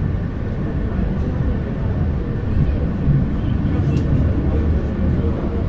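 Underground funicular car running through its tunnel, heard from inside the car: a steady low rumble, with voices in the background.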